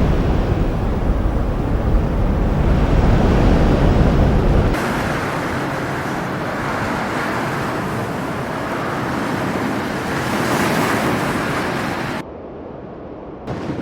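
Steady rushing noise of wind, heavy with low rumbling on the microphone at first. It shifts abruptly to a brighter hiss about five seconds in and drops off sharply about twelve seconds in.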